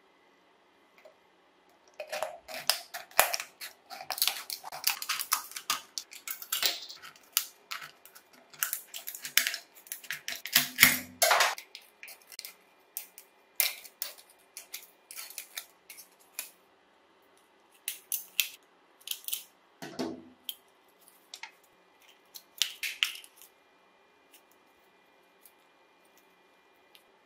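Scissors cutting through a thin aluminium drink can: irregular bursts of sharp metallic snipping and crinkling of the sheet metal, with short pauses between runs of cuts.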